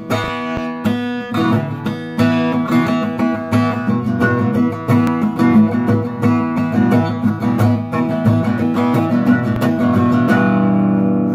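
Acoustic guitar strummed, playing a chord intro; near the end a chord is left ringing.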